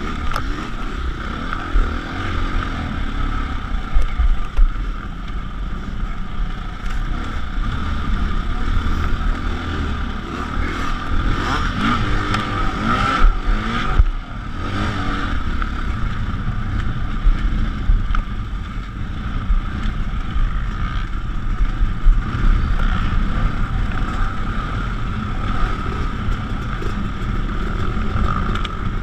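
Dirt bike engine running as the bike is ridden along a rough dirt trail, heard from on the bike itself. The revs rise and fall around the middle, over a steady low rumble with clatter from the bumpy ground.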